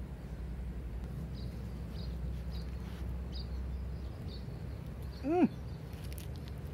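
Outdoor background with a steady low rumble and a few faint, short high chirps, then one short, loud call that rises and falls in pitch about five seconds in.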